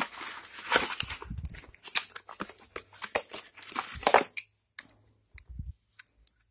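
A cardboard box and its packing rustling and crinkling as they are opened and a crankshaft is lifted out. The rustling eases off after about four seconds into a few quieter handling knocks.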